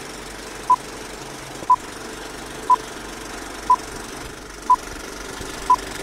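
Countdown sound effect: six short electronic beeps at one steady pitch, one each second, over a steady mechanical rattle.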